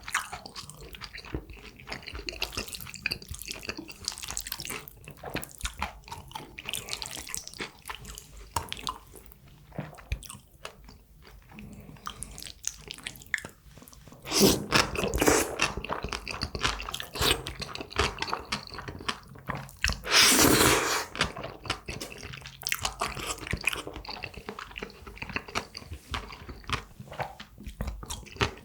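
Close-miked wet chewing and mouth sounds of someone eating jjajangmyeon noodles and tangsuyuk, many small sticky clicks. Twice, about halfway and again about two-thirds through, there is a longer, louder wet stretch of a second or two.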